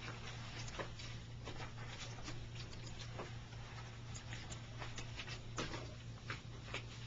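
Claws of a raccoon and a small dog clicking and scrabbling on the wooden slats of a porch swing as they play-fight. The sound is a run of light, irregular ticks and scratches.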